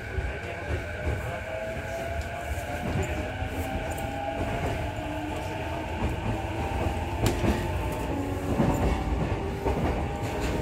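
Running sound inside a JR East E233-6000 series motor car: the inverter and traction motors whine in several tones that rise slowly in pitch as the train picks up speed, over the steady low rumble of the wheels on the rails, with a few sharp clicks of the wheels over rail joints later on.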